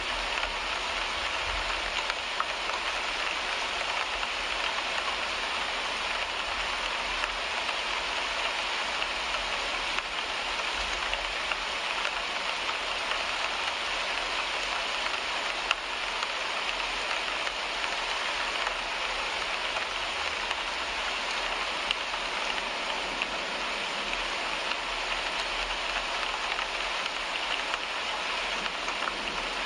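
Steady rain on a car windshield: an even hiss of rainfall with scattered sharp taps of single drops striking the glass.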